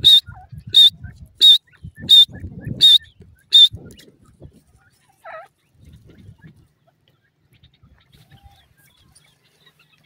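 Grey francolin calling: a run of six loud, sharp, high-pitched notes evenly spaced about two-thirds of a second apart, then one lower call a little after five seconds in. Faint low rustling and handling noise sits underneath.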